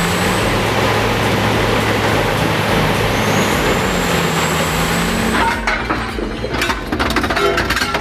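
Peterson 5710C horizontal grinder running under load, a steady heavy engine drone under dense grinding noise as it chews through wooden pallets. About five and a half seconds in the drone drops and sharp, irregular cracking and crunching takes over.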